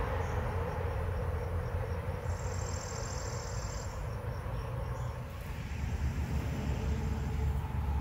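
An insect chirping in a high-pitched, even run of rapid pulses, loudest about halfway through and fading out after about five seconds. Under it is a steady low rumble of distant traffic.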